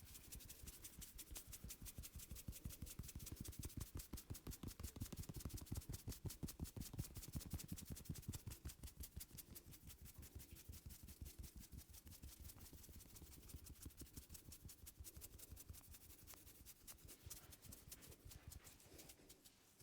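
Hands rapidly tapping and patting on a head during a head massage: a fast, even rhythm of soft slaps, several a second, growing a little fainter in the second half.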